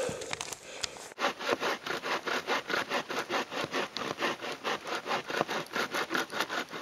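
Sawvivor backpack saw cutting through a dead log in fast, even strokes, about four a second, starting about a second in.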